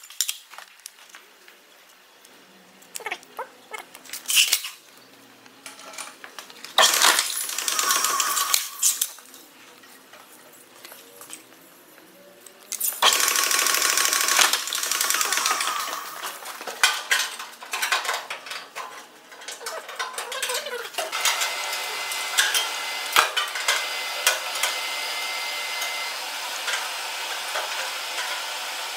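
Sheet steel being handled and trimmed on a mechanical guillotine shear: metallic clanks, clinks and rattles of the sheets on the steel bed, broken by several louder stretches of steady noise.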